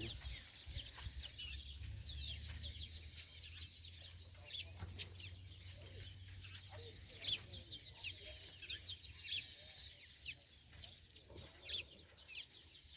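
Many small birds chirping: a dense, continuous chorus of short, high, falling calls, over a low steady rumble.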